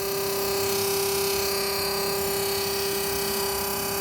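New 12-volt compressor of a mini fridge converted from 220 V, running with a steady hum on one pitch over a constant hiss. The owner is unsure whether the noise is normal and suspects something vibrating at the base or an overcharge of refrigerant gas.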